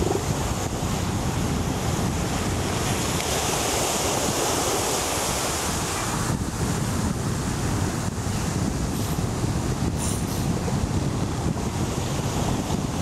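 Steady wind buffeting the microphone, with a low rumble, over the wash of ocean surf that swells for a few seconds before easing.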